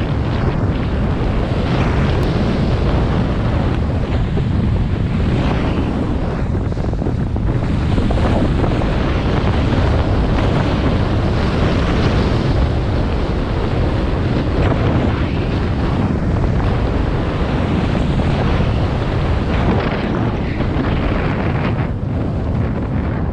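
Heavy wind noise buffeting the microphone of a skier's action camera during a fast downhill run, a steady loud rush strongest in the low end.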